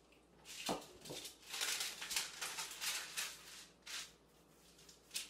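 Parchment paper rustling and crinkling as the top sheet is peeled back off rolled-out cookie dough, with a couple of light knocks about a second in. The rustling dies down to quieter handling of the dough after about four seconds, and there is a single click near the end.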